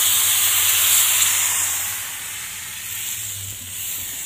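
Hopper batter sizzling with a steady hiss in a hot hopper pan on the gas hob. The hiss eases off about halfway through.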